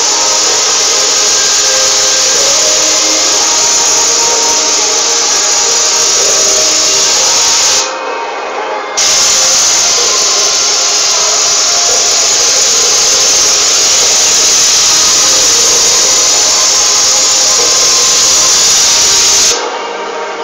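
Airless paint sprayer spraying paint onto a wall through a long-pole spray gun: a loud, steady hiss of atomised paint. The spray cuts out for about a second near the middle and again just before the end.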